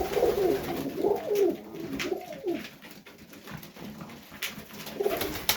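Highflyer pigeons cooing in the loft: a run of wavering coos for the first two and a half seconds that comes back briefly near the end. A few sharp clicks sound between them.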